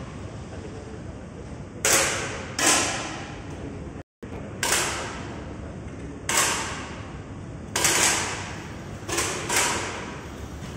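Air rifle shots in a shooting hall: about seven sharp pops at irregular intervals, two pairs close together, each with a short echo, over a steady background hiss.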